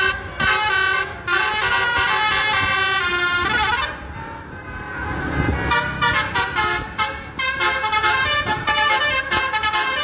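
Multi-tone 'telolet' horn of an Indonesian tour bus playing a quick tune of stepped notes. It breaks off about four seconds in, letting the bus engine and traffic rumble through, and starts again under two seconds later.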